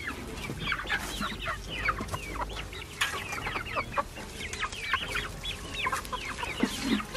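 A flock of young chickens clucking and calling together, a dense stream of short, high, overlapping chirps.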